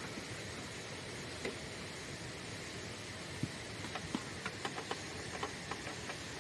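Wood fire crackling: a steady hiss with a run of small, irregular sharp pops that starts about halfway through.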